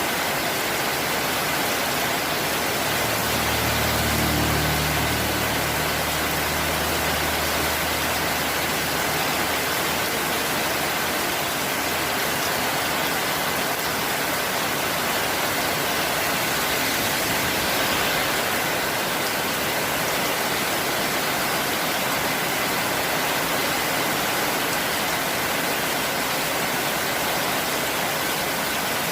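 Heavy rain pouring down steadily, a dense even hiss. From about 3 to 10 seconds in, a low engine hum sounds under it and fades out.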